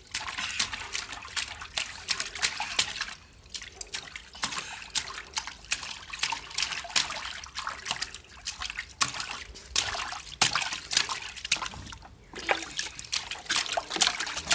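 Water in a black plastic tub being slapped and churned by two small children's hands: a run of irregular splashes and trickles, pausing briefly twice.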